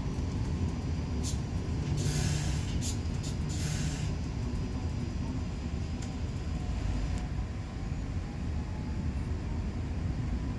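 Electric commuter train heard from inside the carriage, with a steady low rumble as it runs, and a few short hissing bursts about two to four seconds in.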